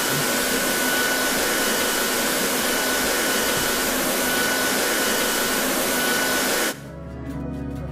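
Loud, steady rushing of an electric air blower, with a thin steady whine over it, which cuts off suddenly near the end; quieter music follows.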